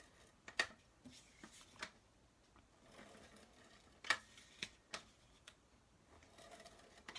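Cardstock being handled on a craft desk, with several sharp clicks and taps as a clear plastic storage case with a pink lid is picked up and moved.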